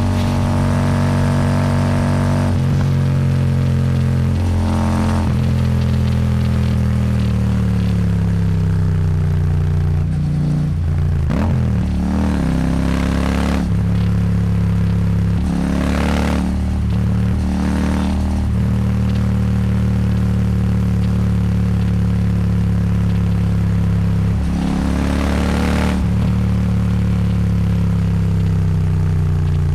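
Royal Enfield Super Meteor 650's 648 cc parallel-twin engine through a Rhino Racing slip-on exhaust, heard from the saddle with wind noise. The engine note sinks slowly, and several times it drops sharply and climbs again.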